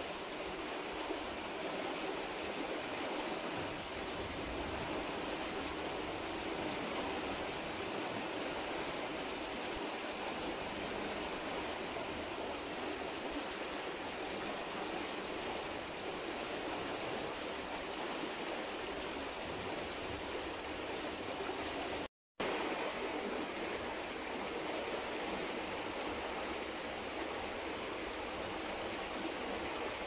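River water flowing with a steady, even rush, cutting out for a moment about two-thirds of the way through.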